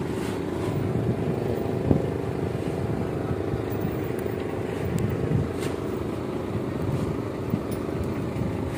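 Steady running of heavy diesel machinery aboard a cargo ship at berth: a low rumble under a constant hum, with a single sharp knock about two seconds in.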